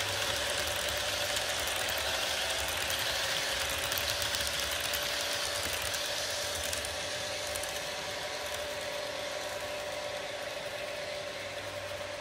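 HO scale model freight train of pipe-loaded cars rolling past on the track, its metal wheels clicking and rattling rapidly over a steady hum, slowly fading as the train goes by.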